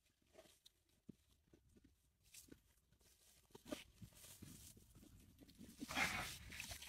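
Quiet rustling and scattered small handling noises while a calf is pulled from a cow during calving, with a louder rushing rustle about six seconds in as the wet calf comes out onto the grass.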